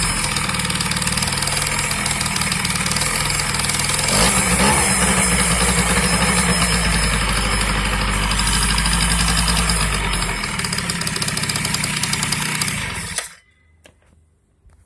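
Yamaha BWS 50 scooter's two-stroke 50 cc engine idling with a knock from inside the engine, of unknown cause. It rises briefly about four seconds in, then is shut off and stops suddenly near the end.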